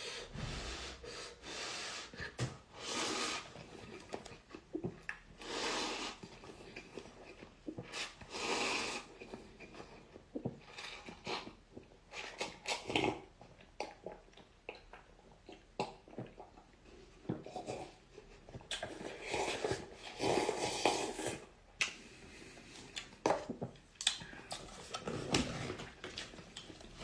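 Irregular rustling, rubbing and light knocks as instant-noodle mini cups and their packaging are handled, with short bursts of noise every second or two.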